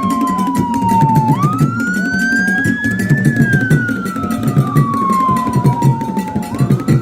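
Wailing siren, its pitch sliding slowly up and down about once every five seconds, over background music with a low, pulsing beat.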